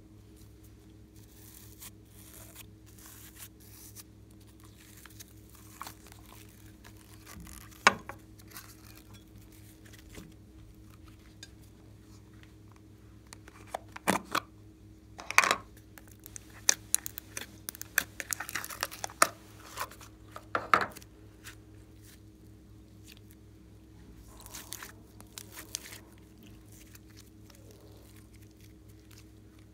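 Hands handling and opening a small plastic case close to the microphone: a dense run of sharp clicks and snaps in the middle, with scattered softer handling noises before and after, over a faint steady hum.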